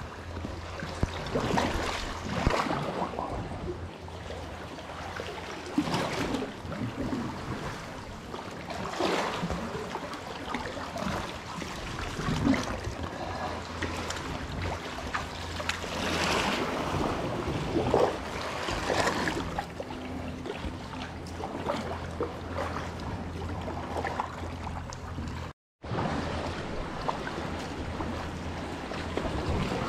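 Kayak paddle strokes dipping and splashing in calm sea water, a swell of splash about every three seconds, over a steady low rumble. The sound drops out for a moment near the end.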